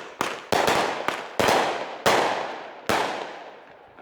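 Fireworks going off: about seven loud, sharp bangs in quick, uneven succession, each fading away. The last bang comes about three seconds in.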